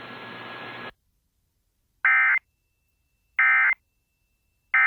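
Emergency Alert System end-of-message data bursts: three short, harsh digital squawks about a second and a half apart, marking the end of the alert. Before them a steady broadcast hiss cuts off suddenly about a second in.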